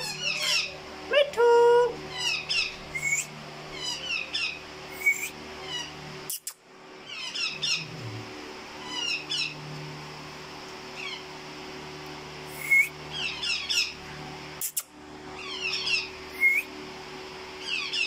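Caged pet parrots calling: quick series of high, falling chirps in bursts every second or two, with a louder drawn-out squawk about a second and a half in.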